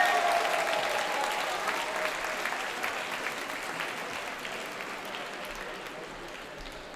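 Audience applauding, the clapping dying away steadily.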